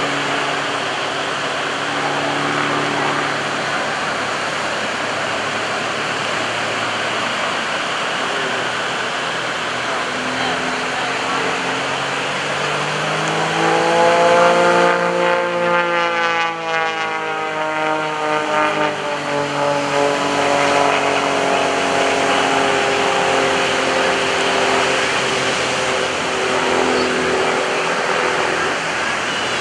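Engine and propeller of a Pitts S-1S aerobatic biplane droning through a routine. The note swells and climbs in pitch about halfway through, is loudest around then, and settles lower again a few seconds later.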